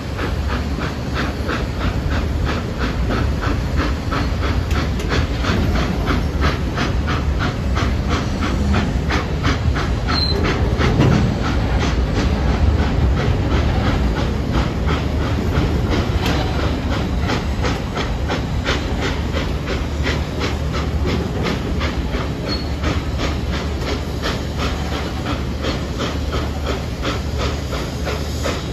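Southern 4501, a 2-8-2 Mikado steam locomotive, working under load, its exhaust chuffing in a steady beat over the low rumble and clickety-clack of the train rolling on the rails, heard from a coach further back in the train.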